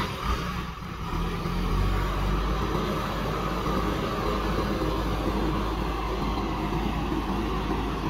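JCB backhoe loader's diesel engine running steadily as the machine drives over the soil.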